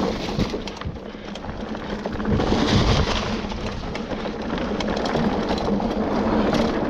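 Trek Stache hardtail mountain bike rolling down a dirt trail: steady rumble and rushing noise of the tyres over the ground, easing off about a second in and building again as speed picks up.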